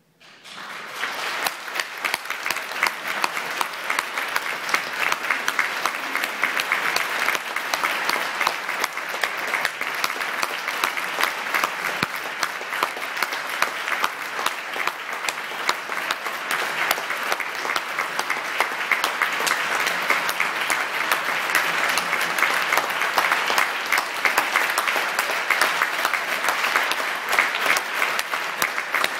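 Concert audience applauding, breaking out suddenly just as the music ends and then going on as dense, steady clapping.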